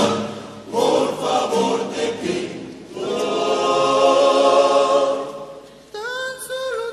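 Rondalla vocal ensemble singing a romantic ballad in close harmony: short phrases, then a long held chord from about three seconds in that fades away. A new held note with a slight upward bend comes in near the end.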